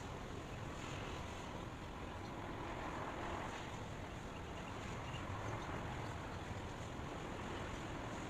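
Steady white noise, an even hiss with no changes.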